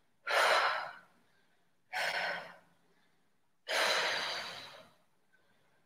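A woman's heavy breathing from exertion during a hip-lift and leg-lift exercise: three forceful breaths out, each under a second long, with silence between.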